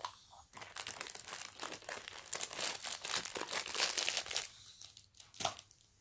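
Packaging crinkling and rustling as it is handled: a dense run of crackling for about four seconds, then one short crackle near the end.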